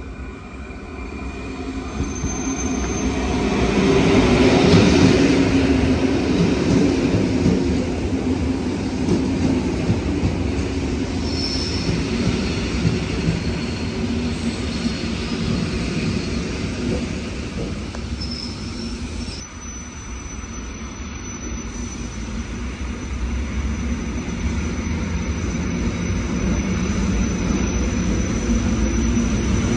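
Electric commuter train of SKM Trójmiasto running in along the platform: a rumble that swells to its loudest about five seconds in, with short high wheel or brake squeals a few times. After a sudden cut, a second electric train approaches and its rumble slowly rises.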